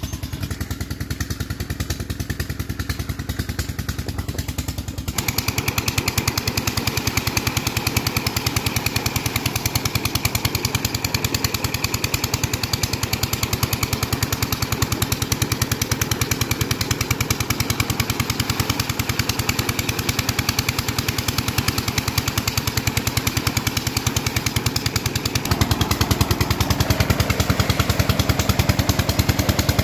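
A tubewell pump's engine chugging steadily with a fast, even beat. From about five seconds in, water gushes from the outlet pipe into the concrete tank over it, with men splashing in the water.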